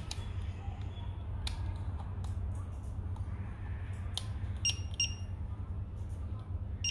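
Two short electronic beeps from the FIMI A3 drone's remote controller, in quick succession a little after the middle. Light clicks from the controller being handled sound over a steady low hum.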